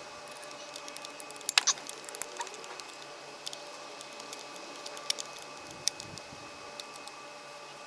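A steady machine hum with scattered sharp clicks and taps; the loudest cluster comes about one and a half seconds in.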